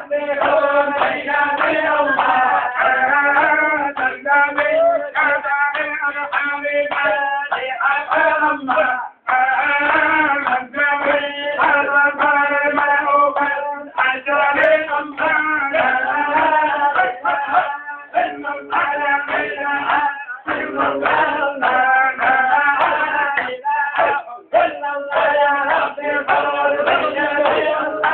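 Men's voices chanting a melody together, led by one voice through a microphone, over a steady held low note. The chant breaks off briefly a few times.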